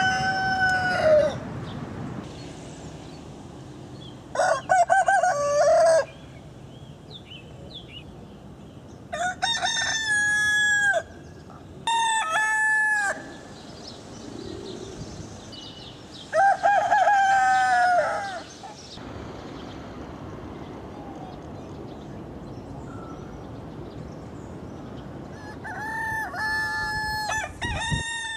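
Roosters crowing: about six cock-a-doodle-doos, each one to two seconds long, spaced several seconds apart, with a faint outdoor background between the crows.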